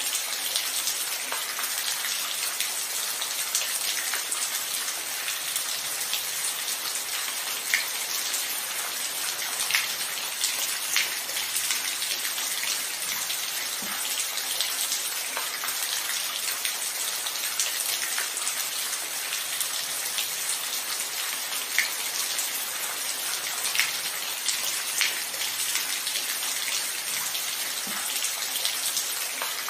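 Steady rainfall: an even hiss of rain with scattered louder individual drops ticking on a surface.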